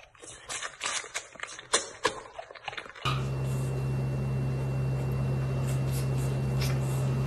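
A white tiger cub sucking and smacking at a milk bottle, a quick run of wet clicks. About three seconds in this gives way to a steady low hum with a faint high whine over it.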